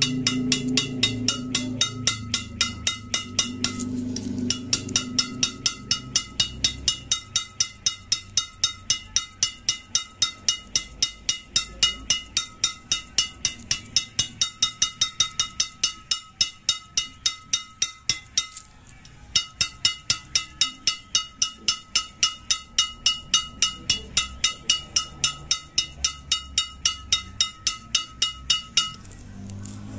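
Badminton racket freshly strung with Yonex BG66 Ultimax at 26 lb tension, its string bed slapped against a palm about two to three times a second; each strike gives a sharp, high-pitched ring from the taut strings, which are 'nyaring banget' (very ringing). The strikes pause briefly about four seconds in and again just past halfway.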